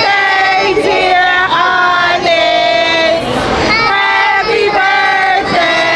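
A group of voices, children's among them, singing together in long held notes.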